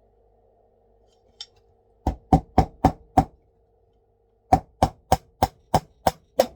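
Hammer driving small nails into a wooden DN4 beehive frame: a run of five quick blows, about four a second, a pause of just over a second, then seven more.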